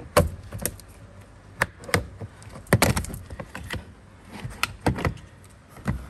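Plastic trim tool prying a Nissan Sentra window switch panel out of the door trim, its snap-in clips popping loose: a string of sharp plastic clicks and snaps, loudest near the start and about three seconds in.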